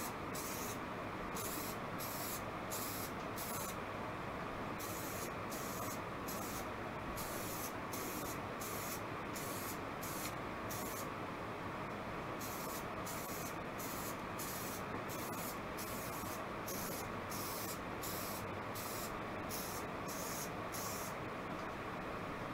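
Aerosol spray paint can hissing steadily as a dark base coat is sprayed onto a plastic cooler.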